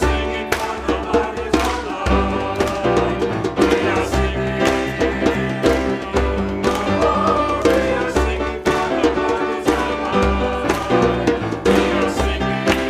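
Music with a steady beat, with instruments and singing, of the kind played during a church service.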